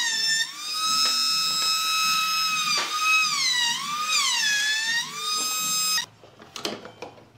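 Compact trim router's motor whining at a high pitch as small pine pieces are routed, its pitch sagging several times as the bit bites into the wood and then recovering. The whine cuts off about six seconds in, followed by a few faint knocks and handling sounds.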